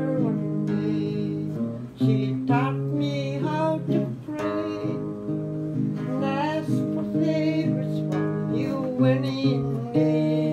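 A woman singing in phrases, her voice wavering with vibrato, while she strums a steady accompaniment on an acoustic guitar.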